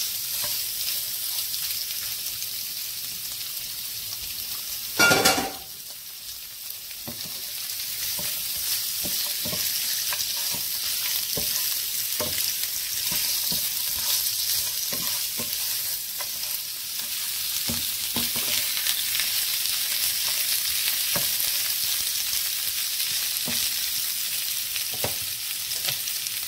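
Lamb ribs sizzling in a nonstick frying pan, with a wooden spatula stirring them and knocking lightly against the pan every second or so. A single loud knock comes about five seconds in.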